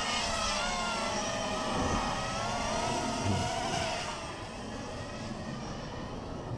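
Motors and propellers of a 250-size FPV racing quadcopter whining in flight, several pitches sliding up and down together as the throttle changes. The whine grows fainter after about four seconds.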